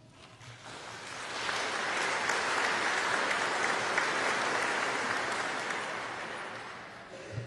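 Audience applauding: the clapping builds over the first second or so, holds steady, then dies away near the end.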